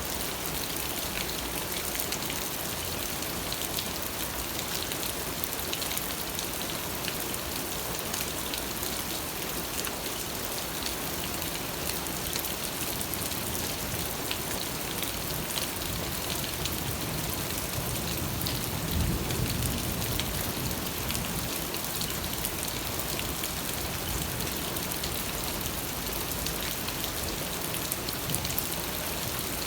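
Steady rain falling, an even hiss full of small drop patters. About two-thirds of the way in, a brief low rumble rises slightly above it.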